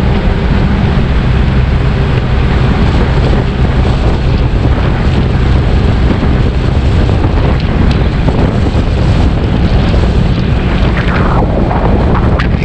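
Motorcycle riding at road speed: heavy wind rushing over a helmet-mounted camera's microphone, with the engine's steady low drone underneath.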